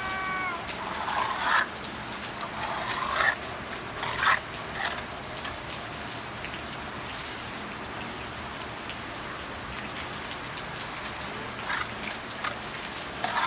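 Steady rain falling, an even hiss, with a few short louder splashing bursts in the first five seconds and again near the end.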